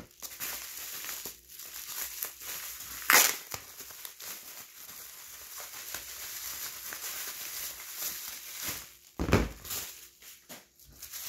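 Bubble wrap crinkling and rustling as hands pull it off a stack of trading cards, with a sharp, louder crackle about three seconds in and a thump about nine seconds in.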